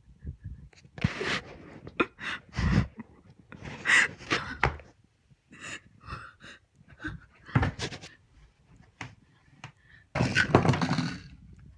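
A person breathing hard in uneven bursts of breath, with a few knocks and clicks between them.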